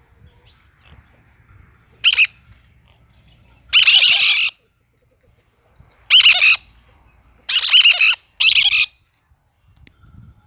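Cactus parakeets giving loud, harsh screeches, about five calls a second or two apart, the longer ones lasting about half a second.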